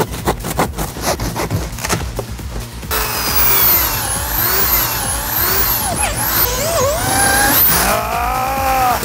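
Background music with a steady beat. From about three seconds in, a handheld power tool runs into cardboard, its motor pitch rising and falling with the load, and it winds down and stops near the end.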